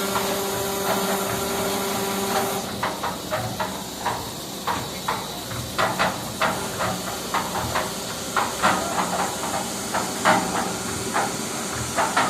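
Hydraulic concrete mixer at work. A steady machine hum stops about two and a half seconds in, then irregular clacks and knocks ring out over a steady hiss.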